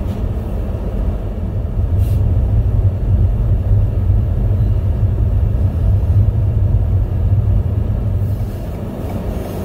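Steady low rumble of car road and engine noise heard inside the cabin, with the tyres running on a snow-covered road.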